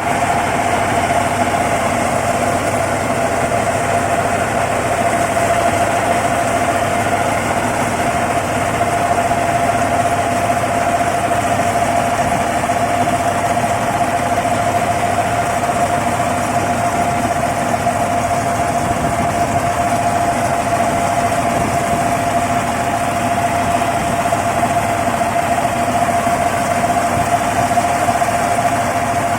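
Mini combine harvester running steadily: a constant engine and machinery drone with one steady whining tone over it.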